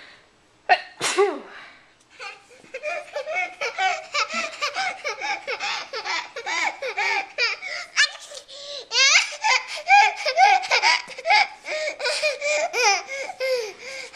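A sneeze about a second in, then a baby's long fit of belly laughter in fast, high-pitched bursts, pausing briefly near the middle and coming back louder.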